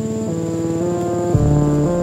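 Background music: sustained instrumental notes that step from pitch to pitch, with a deep bass note coming in about two-thirds of the way through. A thin steady high tone runs underneath.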